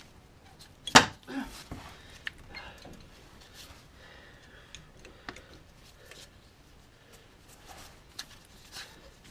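Hand-tool work on a car's front brake caliper: a sharp click about a second in, then scattered lighter clicks and taps as a caliper guide pin is unscrewed with a 7mm Allen key.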